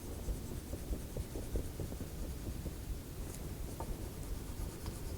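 Faint scribbling of a colouring tool rubbing back and forth on paper.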